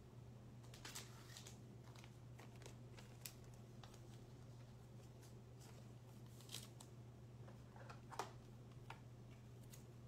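Near silence with a steady low hum, broken by a few faint ticks and rustles of trading cards being handled and set down; the clearest is about eight seconds in.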